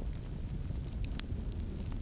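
Wood fire crackling in a fireplace: a steady low rumble of burning, with scattered sharp pops and crackles.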